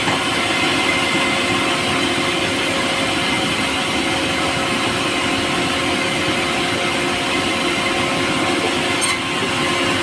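Power saw running steadily as it cuts through pulai, a light, soft timber, with a brief change in the high end about nine seconds in.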